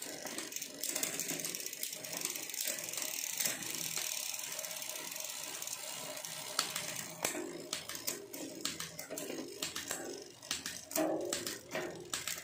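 Bicycle drivetrain running on a 12-speed setup: a KMC 12-speed chain turning over a ZTTO cassette and a Shimano SLX rear derailleur's pulleys as it is shifted across the cogs. A steady whirring hiss runs for the first half, then irregular clicking ticks start about seven seconds in. It runs very quietly and smoothly, with no chain drop.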